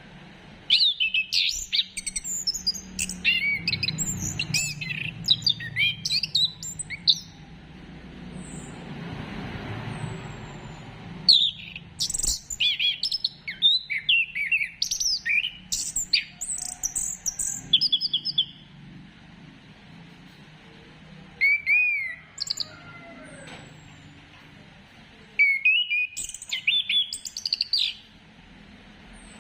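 Orange-headed thrush (anis kembang) singing in bursts of rich, varied, fast whistled phrases, three long bursts of several seconds and one short call, with pauses between them.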